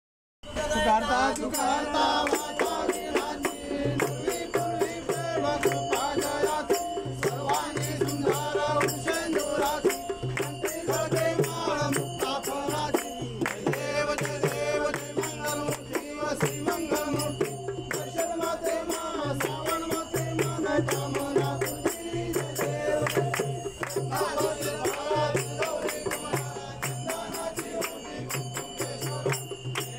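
A group of men singing a Ganesh aarti in unison, kept in time by rhythmic hand clapping and a hand drum, with a steady even beat throughout. It starts abruptly about half a second in.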